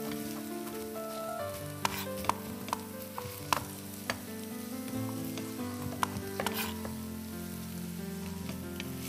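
A chef's knife chopping on a cutting board: a handful of scattered sharp taps, most in the first half, over a steady sizzle of food frying.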